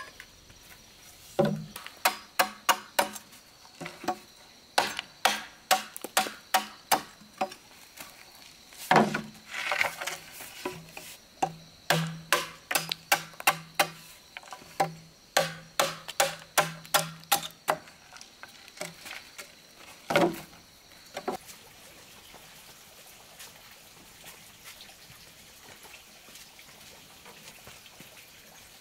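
A machete chopping into a green bamboo tube on a wooden stump. The strikes come in quick runs of about three a second with short pauses, then stop about two-thirds of the way through.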